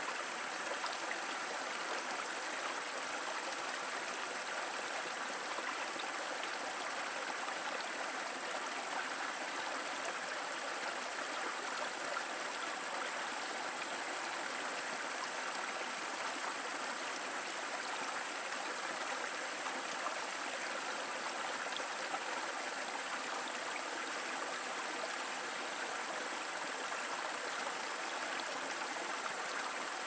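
Shallow rocky stream running steadily, water spilling over a small cascade between boulders into a pool: an even, unbroken rush with little low rumble.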